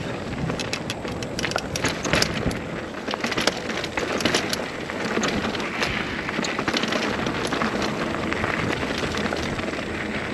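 Mountain bike rolling over rock slabs and loose gravel: tyres crunching and crackling, with many sharp clicks and knocks from the bike rattling over the bumps.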